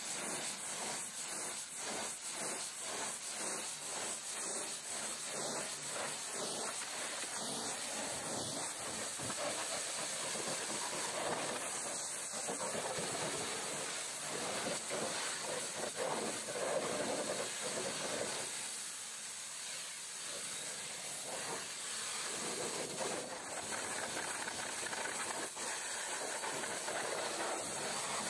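High-pressure washer jet spraying water onto a truck, a steady hiss with a regular pulse about twice a second at first. Its tone shifts as the jet moves from the tarpaulin curtain side to a wheel and tyre and then the metal fuel tank.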